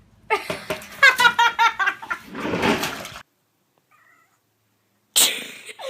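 A cat meowing in a quick run of short calls, then a longer, rougher call that cuts off abruptly about three seconds in. A different noisy sound starts near the end.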